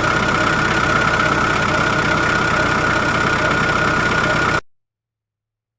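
Small toy tractor engine running steadily, with a high, even whine over a rapid low chatter, then cutting off abruptly about four and a half seconds in.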